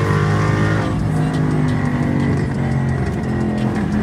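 2016 Ford Mustang GT's 5.0-litre V8 running while the car is driven, holding steady pitches that shift a few times.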